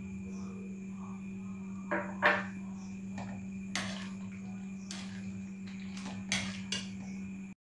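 A spoon stirring in a kadhai of thickened milk, knocking and scraping against the pan about seven times, the loudest clink about two seconds in, over a steady low hum.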